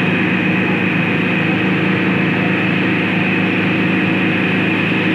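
Tractor diesel engines at full load, a green John Deere and a blue tractor pulling against each other in a tug-of-war, making a steady drone.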